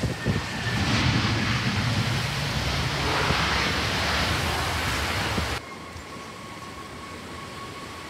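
Loud, even rushing noise of a jet airliner's engines at take-off power, with a low rumble. It cuts off suddenly about five and a half seconds in, leaving a quieter steady hiss with a faint high whine.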